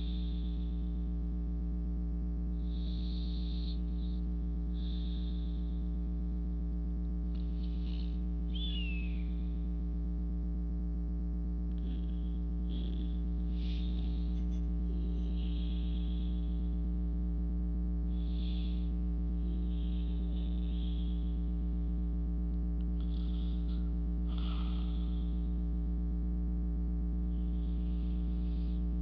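Slow, soft breathing close to the microphone, a breath every two to three seconds, over a loud, steady low hum.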